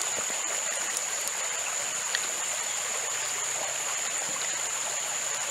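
Steady rushing of running water, with a constant high-pitched whine held above it and a few faint small clicks.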